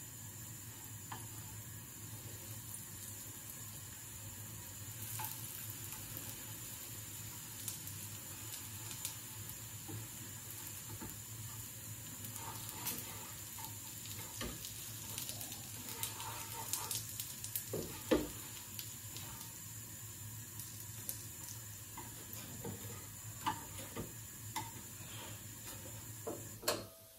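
Food frying in a pan, sizzling with scattered crackles and a louder pop about 18 seconds in, over a steady low hum; the sound drops away suddenly near the end.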